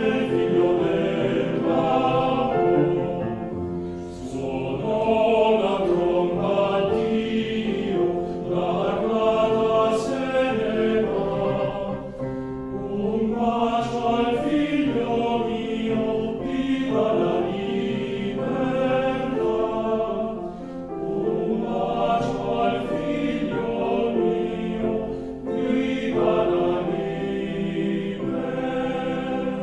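Background choral music: a choir singing in phrases of held notes.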